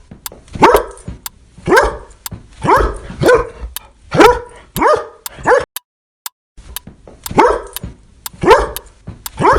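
A dog barking over and over, in two runs of short barks with a pause of about a second halfway through.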